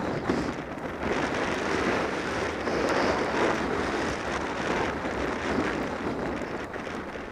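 Wind buffeting the microphone, mixed with the hiss of skis sliding and scraping through snow on a fast downhill run.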